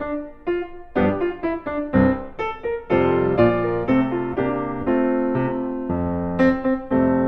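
Background piano music: single notes and chords struck and left to ring, with the playing growing fuller and more sustained about three seconds in.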